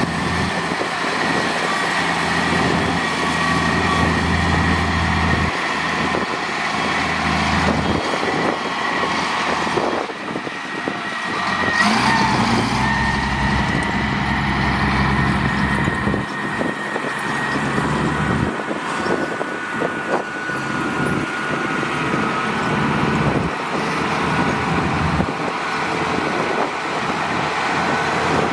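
Diesel engines of heavy road-construction machinery running under work, with a steady high whine over the engine note. The engine note rises and falls several times and is loudest about twelve seconds in.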